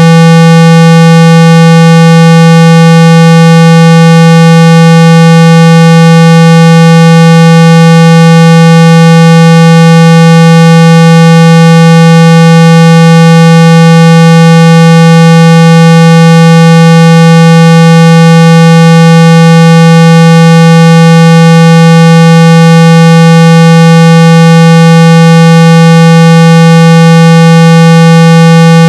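Synthesized 165 Hz test tone played at full volume, a steady unbroken low tone with a slightly buzzy edge from its overtones. It is the kind of tone played through a phone speaker to shake out water and dust.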